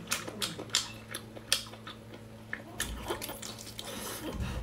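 Close-up wet chewing and mouth clicks of someone eating cooked octopus, a string of sharp, irregular smacks.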